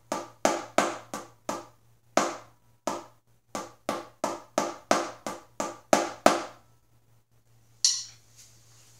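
Wooden drumsticks striking a rubber practice pad in the bass drum part of a simple 2/4 pattern. The strokes come about three a second, with two short gaps, and stop about six seconds in. Near the end comes a single sharper click as the sticks are brought together.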